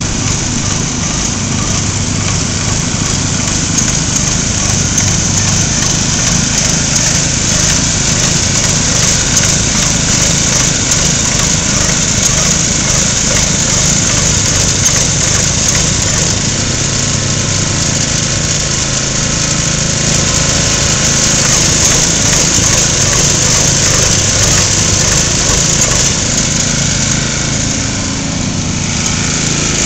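Small gasoline engine on an airless line-striping machine running steadily under load while it sprays a paint line, with a steady hiss over the engine note.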